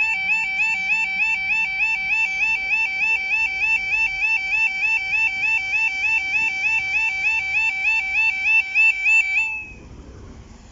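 British level crossing audible warning alarm, the electronic yodel, warbling in a fast repeating two-step rise about three times a second. It cuts off suddenly near the end, as the barriers go up.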